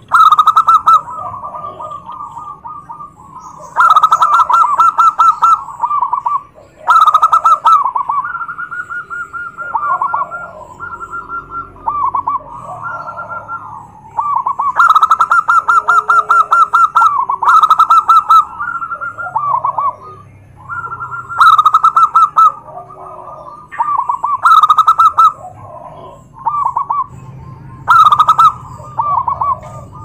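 Several zebra doves (perkutut) cooing over one another. Loud, rapid, rolling coo phrases come every three to four seconds, with quieter coos overlapping in between.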